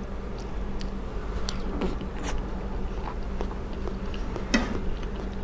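A person chewing a mouthful of food close to a clip-on microphone, with soft wet mouth clicks here and there, the loudest about four and a half seconds in, over a steady low hum.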